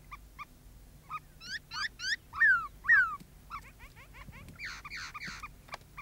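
A dog whining: a run of short, high whines, with two loud falling cries in the middle and a fainter flurry of whines near the end.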